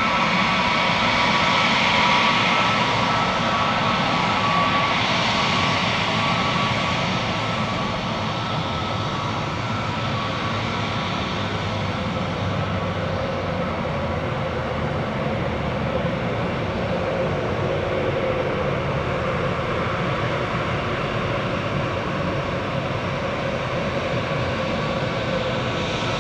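Jet airliner's turbofan engines running steadily: a rushing noise with a steady whine on top, easing off slightly after the first few seconds.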